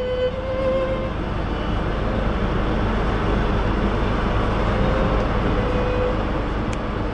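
Commuter train running along a station platform, heard from inside the carriage: a steady, even running noise of wheels and motors.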